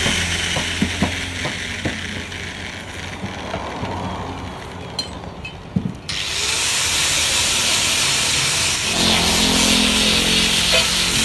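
A power tool running, easing off from about three seconds in and starting up loud again about six seconds in, with a few clicks in between.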